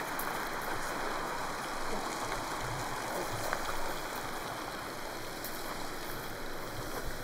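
A steady rushing hiss, like running water.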